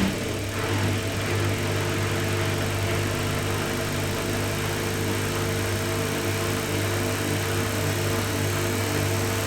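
Samsung Eco Bubble washing machine on its spin cycle: a sharp knock at the very start, then the drum and motor spin with a steady hum that builds over the first second or so and holds.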